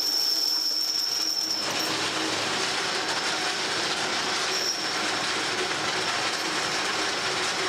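Steady mechanical noise of workshop machinery running, with a thin high-pitched whine over it for the first couple of seconds and again briefly later.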